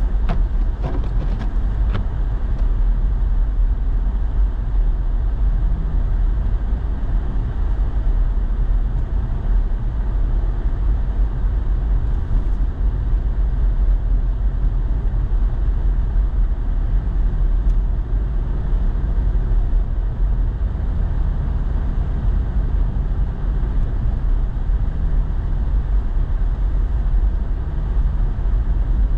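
Steady low rumble of road and engine noise heard from inside a truck's cab while driving, with a few faint clicks in the first couple of seconds.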